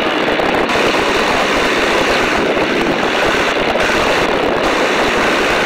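Steady engine and wind noise in the open cockpit of a de Havilland DH.82A Tiger Moth in flight, from its Gipsy Major four-cylinder inverted engine and propeller.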